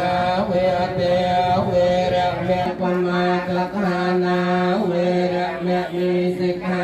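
Theravada Buddhist monks chanting a funeral rite in long, held tones on nearly one pitch, with short breaks between phrases.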